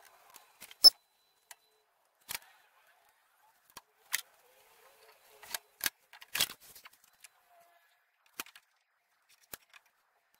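Workshop items being picked up and set down on a table saw's metal top: a wooden jig, a plywood board, a calculator and a metal square giving a string of separate sharp knocks and clicks. The loudest knock comes about a second in, with a cluster of them a little past the middle.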